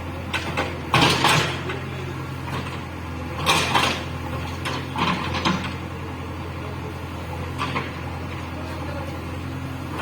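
JCB 3DX backhoe loader's diesel engine running steadily, with several short bursts of clatter from the working machine, the loudest about a second in and again around four seconds in.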